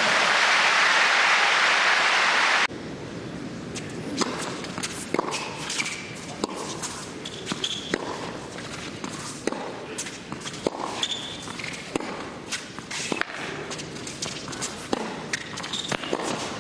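Crowd applause that cuts off suddenly about two and a half seconds in, followed by a tennis rally on an indoor court: rackets striking the ball back and forth, the ball bouncing and players' footsteps, as sharp irregular knocks.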